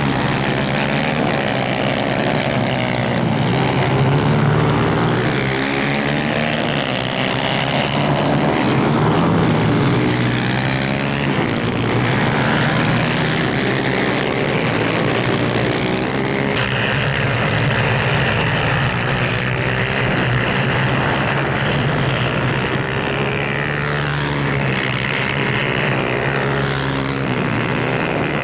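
Several 250cc two-stroke superkart engines racing together, their notes rising and falling as the karts accelerate, lift off and pass.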